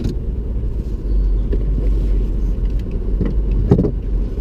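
Low, steady rumble of a moving car, with two brief knocks a little after three seconds in and again near three and a half seconds.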